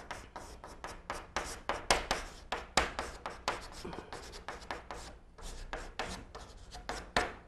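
Chalk scratching and tapping on a blackboard while Chinese characters are written by hand: a rapid train of short, dry strokes, several a second.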